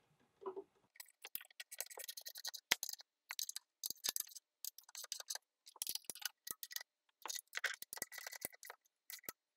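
Ratchet wrench clicking in short runs of rapid ticks, with brief pauses between runs, as bolts are snugged down.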